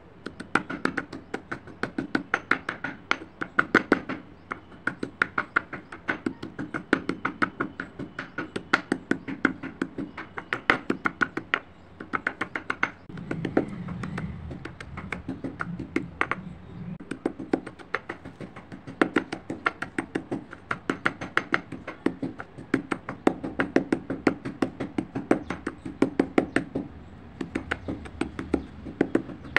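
Slate pencil pieces being pounded and crushed with a stone pestle in a stone mortar: quick repeated crunching knocks, several a second, as the brittle pieces crack under each strike.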